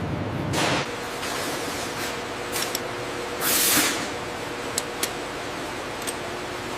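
Steady industrial machine hum with three short hisses of escaping air, the longest about halfway through, and a few sharp clicks near the end.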